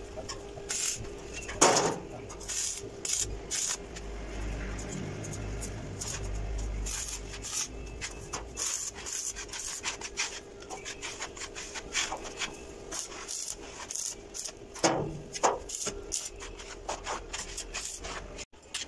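Irregular scraping, rubbing and short knocks of steel being handled and worked on a spiral-stair frame, with a faint steady hum underneath; the sharpest knock comes near the start.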